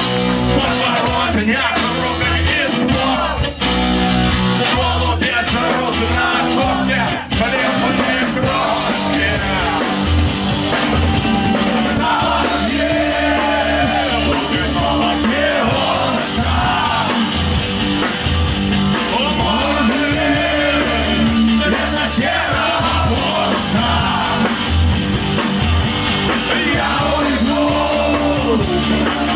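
Punk-rock band playing live, with distorted guitars, bass and drums under a singer's shouted vocals.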